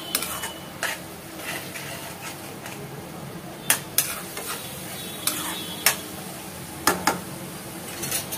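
Spatula scraping and knocking against a nonstick kadai in an irregular series of strokes as masala is stirred, over a steady sizzle of the spice paste frying in oil. The masala is at the stage where it has released its oil.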